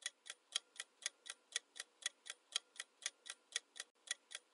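Clock-ticking sound effect of a quiz countdown timer, about four sharp ticks a second alternating louder and softer, marking the seconds left to answer. It cuts off suddenly at the end.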